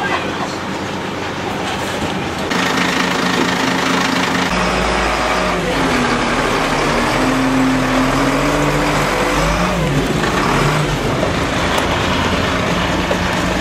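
Rear-loader garbage truck's engine running close by. It gets louder about two and a half seconds in and deepens a couple of seconds later, then its pitch rises and falls as it revs.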